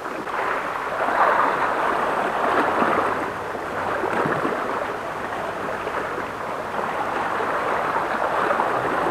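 Sea water washing against a rocky shore, a steady rushing that swells and eases.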